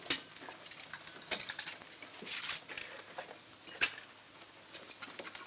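Crockery clinking and knocking as plates are gathered up from a table: a scatter of sharp clinks, the loudest just after the start and just before four seconds in.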